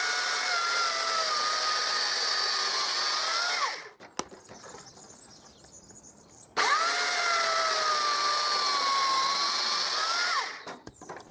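Chainsaw in a cutting jig sawing through thick branches, twice, each cut about four seconds long with a short pause between. During each cut the saw's steady whine slowly drops in pitch under the load, then rises briefly just before it stops.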